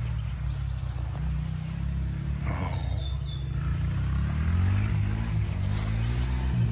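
Quad bike (ATV) engine running close by, its revs rising and falling.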